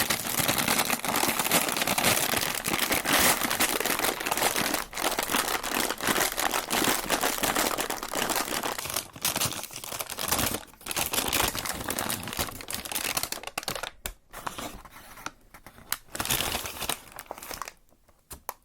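Paper fast-food packaging being crumpled and rustled by hand: dense, steady crinkling for about the first ten seconds, then shorter separate spells of rustling that stop just before the end.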